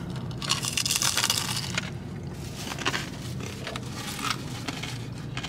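Close-up crunching of fried pork skin (chicharrón) being bitten and chewed. A loud, dense crackling crunch comes about half a second in and lasts over a second, followed by several shorter crunches as it is chewed.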